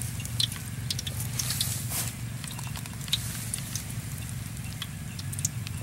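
Oil in a steel wok crackling with scattered small pops as battered banana pieces fry, over a steady low hum.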